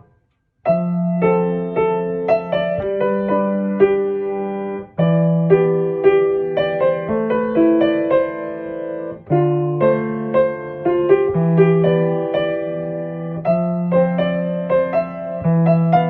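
Background piano music: a gentle keyboard piece with a steady bass line, starting about half a second in after a brief silence.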